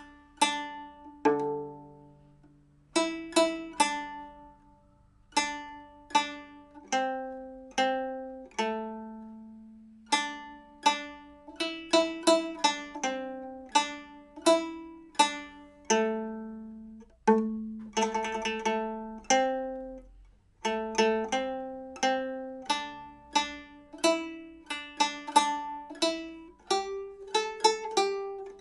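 Nanguan pipa strung with nylon strings and fitted with cow-bone frets, played solo: single plucked notes that ring and die away in a slow, unhurried melody, with a quick run of repeated plucks about eighteen seconds in. It is being played to test its sound after the frets were refitted and the instrument retuned.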